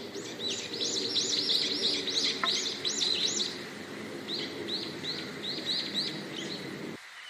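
Small songbirds chirping: many quick, overlapping up-and-down chirps in the first half, then a steadier run of repeated chirps at about two a second. Underneath runs a low, even rushing noise that cuts off near the end.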